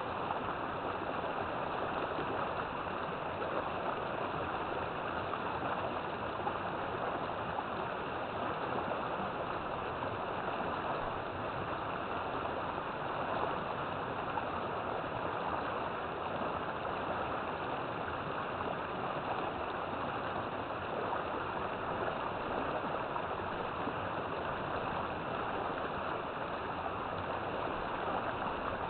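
River water flowing and rushing steadily, an even splashing hiss with no pauses or separate events.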